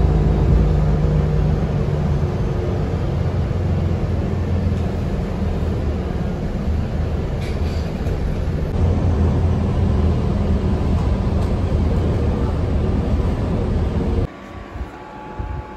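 Steady low engine hum and rumble heard from a seat inside a running public bus. Shortly before the end it cuts to a much quieter steady fan hum.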